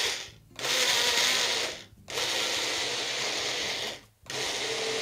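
Personal bullet blender's motor whirring in four pulses, stopping briefly three times, as it blends ripe bananas, yogurt and olive oil into a smooth cream.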